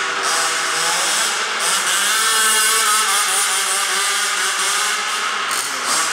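Zenoah 29cc two-stroke engine with a Samba tuned exhaust pipe on a 1/5-scale MCD W5 RC truck, running under throttle as the truck drives. It revs up about a second in, holds high, and drops back near the end.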